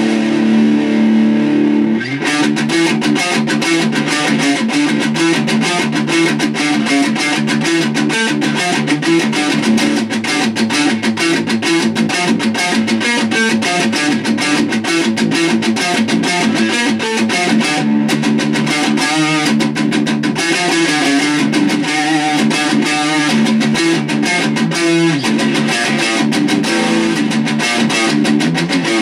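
Ibanez RG2EX1 electric guitar with a distorted tone playing a metalcore riff. A chord rings out for about two seconds, then gives way to fast, tightly picked rhythm playing.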